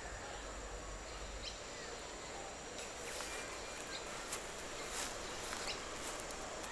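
Faint bush ambience with brief bird chirps now and then. From about two seconds in a thin steady high whine joins, and from about three seconds in there are scattered soft crackles of dry leaf litter as a koala walks over it.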